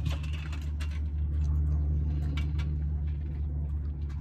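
A steady low engine rumble with scattered light clicks and rustles.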